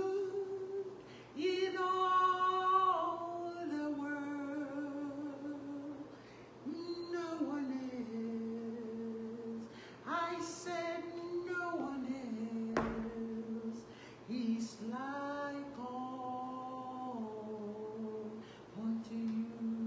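A woman singing unaccompanied in slow worship phrases, holding long notes that step from pitch to pitch, with short pauses between phrases. A brief click a little past the middle.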